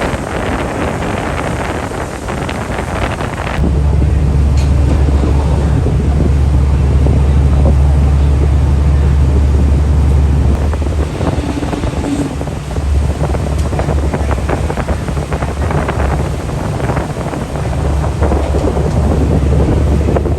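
Strong wind buffeting the microphone, turning into a heavy low rumble about three and a half seconds in that drops away briefly twice.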